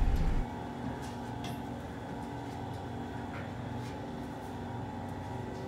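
Steady mechanical hum of a stairway bicycle conveyor belt running, with a few faint footsteps on the stairs.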